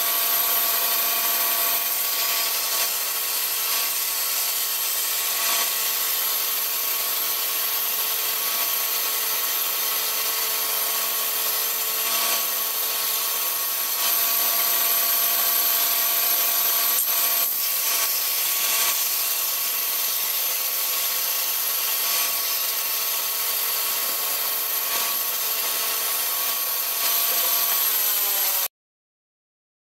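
Band saw running and ripping a wooden plank fed through it by hand: a steady motor and blade whine under the hiss of the cut. The whine dips slightly in pitch just before the sound cuts off abruptly near the end.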